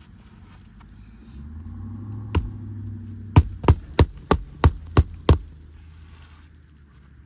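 Hammer driving roofing nails into asphalt shingles: a single blow, then a quick run of seven sharp blows about three a second. A low steady hum runs underneath during the hammering.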